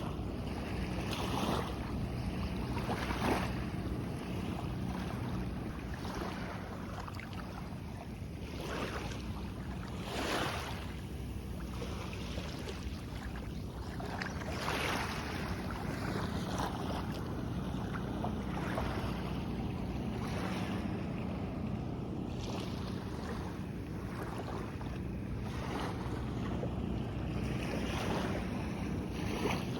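Small waves washing in on a sandy beach, a soft surge every second or two, with wind on the microphone and a steady low hum underneath.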